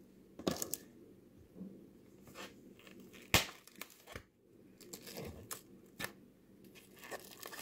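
Plastic cling wrap crinkling and rustling as it is handled, in a string of short, irregular crackles, the sharpest a little over three seconds in.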